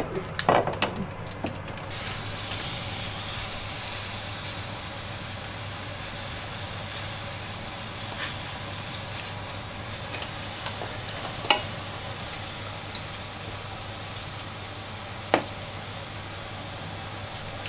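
Cauliflower rice sizzling steadily in a dry nonstick frying pan, cooked without oil, with a few short knocks of a spatula and food against the pans.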